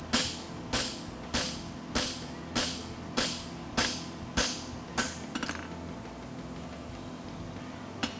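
Hand hammer striking a red-hot steel horseshoe on an anvil: about nine even blows a little over half a second apart, each ringing briefly, then a few light ticks and a pause of about two and a half seconds. The blows flatten the shoe's branch to gain width before it is fullered.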